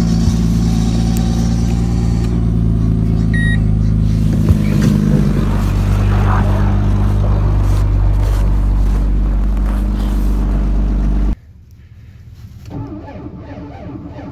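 Mercedes-Benz W210's engine running steadily after a cold start at about −35 °C, an even low hum. It cuts off abruptly about eleven seconds in, and only faint, quieter noises follow.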